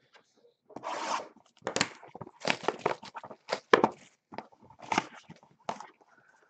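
Clear cellophane shrink-wrap being torn and crinkled off a sealed box of trading cards, in a run of irregular ripping and rustling bursts.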